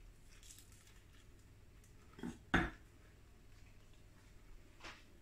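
A mouthful of steak and kidney pie being chewed quietly, with two short knocks a little over two seconds in.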